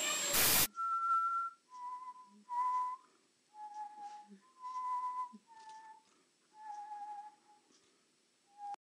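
A person whistling a string of about eight short, steady notes at slightly different pitches, the first one the highest, with breath audible. A brief loud burst of noise comes right at the start.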